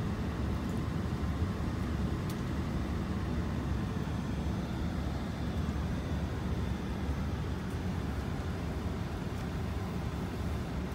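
Steady low rumble of cabin noise inside an Airbus A380-800 on the ground, the engines and air-conditioning running at an even level with no rise in pitch.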